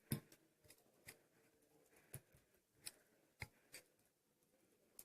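A fork tapping and clinking against a bowl while stirring mashed garlic into olive oil: about seven faint, short, irregular clicks.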